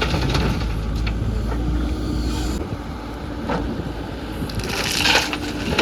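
Diesel engine of a JCB 3DX backhoe loader running under work, its low rumble easing a little about two and a half seconds in, with two brief louder scraping or clanking noises about three and a half and five seconds in.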